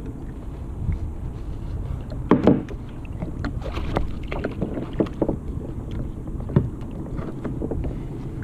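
Scattered knocks and thumps on a kayak, the loudest about two and a half seconds in, over a steady rumble of wind on the microphone.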